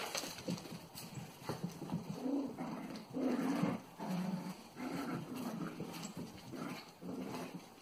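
Cavalier King Charles Spaniel puppies making a run of short, low whimpers and grunts, one after another, with a few light clicks among them.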